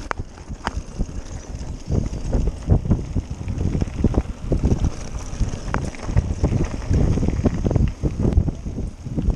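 Wind buffeting the microphone of a bike-mounted camera while a mountain bike rides over a dirt trail. There is a continuous low rumble, and many short knocks and rattles as the bike jolts over the ground.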